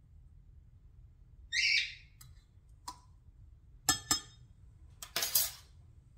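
Kitchen utensil sounds while olive oil is measured from a stainless steel oil pourer into a metal tablespoon over a glass measuring cup. There is a short hiss about one and a half seconds in, then a few sharp clinks of metal against glass, loudest as a quick pair near the middle, and a brief rush of noise near the end.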